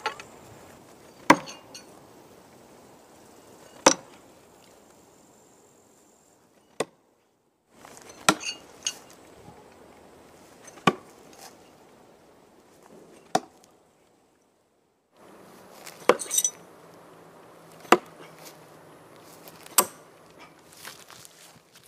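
Steel Spez-5 B.R.U.T throwing knives striking a wooden log target: about a dozen sharp knocks, each a single short hit, spaced one to three seconds apart.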